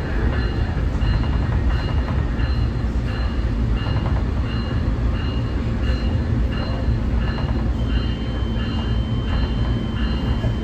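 A Nippon Sharyo diesel multiple unit running and slowing, heard as a steady low rumble of engine and wheels, with two high beeping tones alternating about every half second. A steady high squeal joins about eight seconds in.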